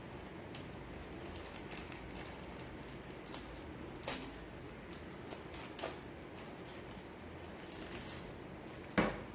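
Clear plastic pouch being handled and opened by hand: faint crinkling with scattered soft clicks, and a sharper click near the end.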